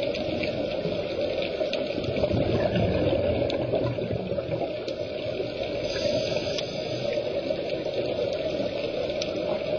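Scuba divers' exhaled bubbles and regulators, heard underwater through a camera housing: a steady bubbling rush that swells and eases slightly, with a few faint clicks.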